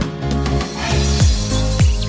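Background music: a track with held chords over a steady beat, about three beats in the two seconds.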